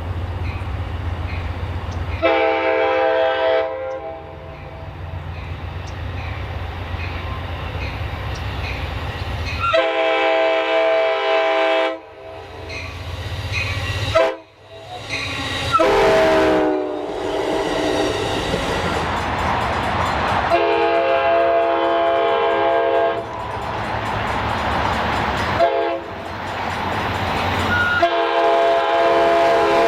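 The replacement train horn fitted to Pacific Surfliner cab car 6908 in 2017, a multi-note chord horn, sounding about seven blasts, long and short, over the rumble of the passing train. One blast near the middle drops in pitch as the train goes by.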